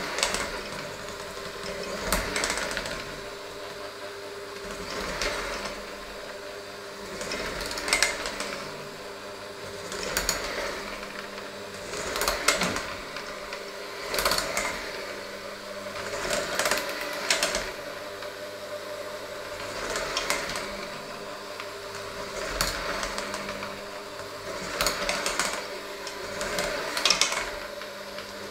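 Handheld electric mixer running steadily in a thick mixture in a stainless steel bowl. About every two seconds the beaters knock and scrape against the bowl as the mixer is moved around, making the sound swell.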